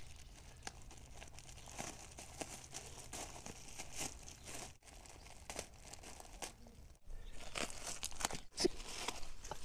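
Plastic poly mailer bag crinkling and tearing as a Siberian husky bites and pulls at it with teeth and paws, an irregular crackly rustle that grows louder and busier in the last few seconds.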